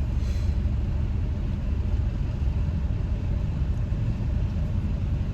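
Car cabin noise while driving: a steady low rumble of engine and road noise heard from inside the car.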